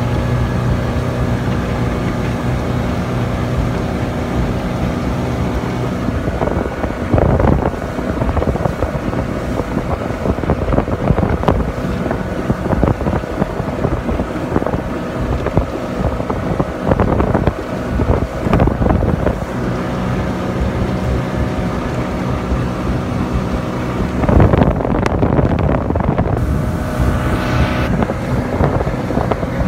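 Monterey 180 motorboat's engine running steadily under way, with wind on the microphone and rushing water that swells in louder surges several times.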